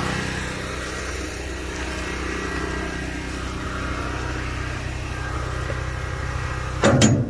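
An engine running steadily at an even idle, with a short loud clatter near the end.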